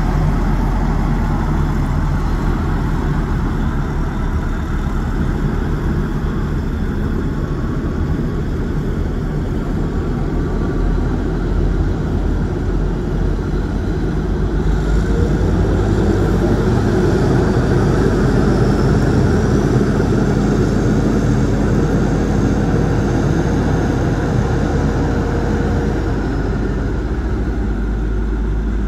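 Caterpillar 980G wheel loader's diesel engine running steadily; about halfway through it picks up and a higher whine joins while the bucket is lifted, then fades again near the end.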